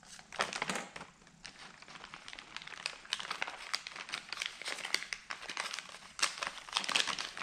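Clear plastic packaging bag crinkling and rustling as a shifter gasket is handled in and out of it: a steady run of quick, irregular crackles, a few louder ones among them.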